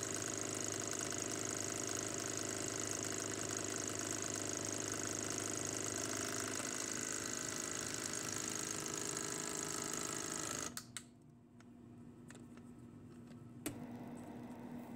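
Robart electric hobby paint shaker running steadily, shaking a dropper bottle of airbrush paint that has small gemstone mixing beads inside. It cuts off about eleven seconds in with a couple of clicks, and there is a single click near the end.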